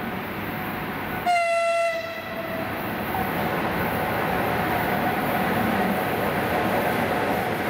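VL11 electric locomotive sounding one short, high horn blast about a second in, the loudest sound here. After it comes the rumble of the approaching freight train, growing steadily louder.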